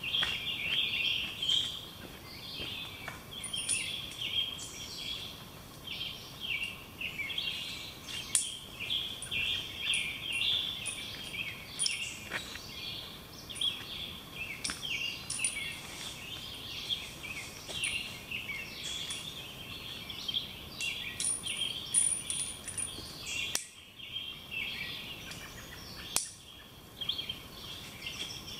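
Several songbirds singing and chirping at once, a dense chorus of high calls, with an occasional faint click.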